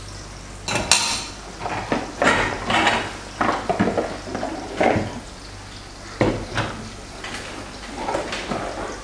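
Tableware clattering: irregular clinks and knocks as salt and pepper shakers, their wire stand and cutlery are handled and set down, the loudest about a second in.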